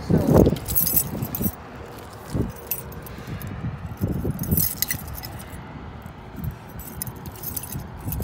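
Light metallic jangling and clinking with scattered dull knocks, the loudest knock right at the start.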